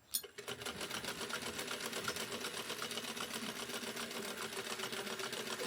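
Sewing machine running at a steady, fast stitch, an even rapid clatter over a motor hum.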